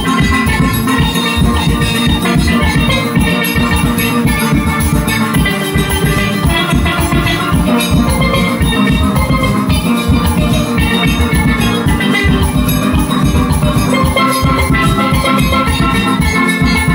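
Single-pan steel band playing: steelpans ring out the melody and chords over a driving drum beat.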